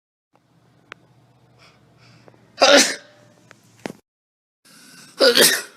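A person sneezing twice, each a loud, short burst, about two and a half seconds apart, the second with a short in-breath just before it.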